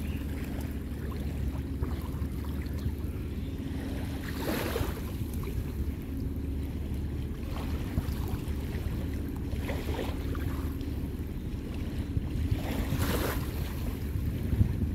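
Wind buffeting the microphone beside open sea water, over a faint steady low hum, with two louder washes of noise about four and a half seconds in and again near the end, like small waves slapping.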